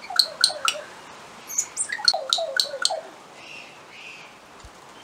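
New Zealand kākā calling at close range: two quick runs of short, sharp chirping calls, the second run longer, followed by a few softer notes.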